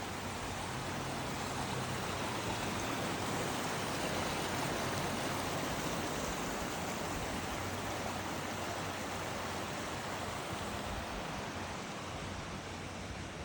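Steady rush of water, an even hiss-like roar that swells slightly through the first few seconds and eases off a little near the end.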